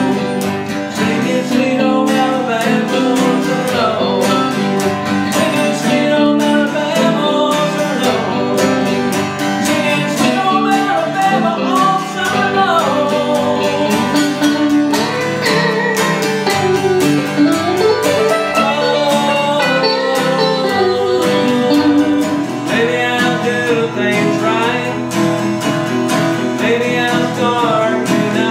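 Country-style instrumental break on two guitars: an electric guitar plays a lead line with bent, sliding notes over a strummed acoustic guitar.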